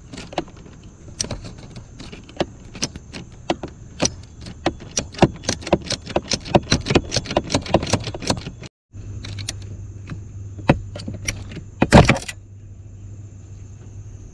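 Ratchet wrench clicking in quick strokes as a tamper-proof break-off bolt on the steering column is tightened, the clicks coming faster toward the middle. About twelve seconds in, one loud sharp snap as the bolt's head shears off, as designed.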